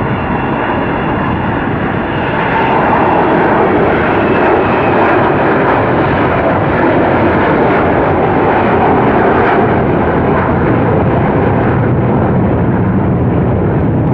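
Avro Vulcan XH558's four Rolls-Royce Olympus turbojets in a loud, steady jet roar as the delta-wing bomber flies a low display pass, getting louder about two seconds in and then holding.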